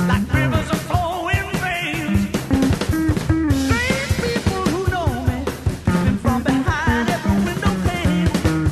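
Rock song playing, with a steady drum beat, guitar and a singing voice.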